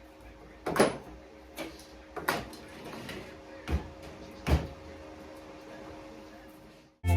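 About five separate knocks and clunks spread over a few seconds, over a faint steady hum. Music starts at the very end.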